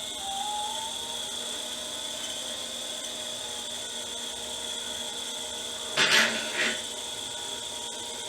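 Drill-driven Stripmeister E250 wire stripper running with a steady motor whine as thick #2 RW90 copper wire is fed through and its insulation slit. Two short, loud scraping bursts come about six seconds in.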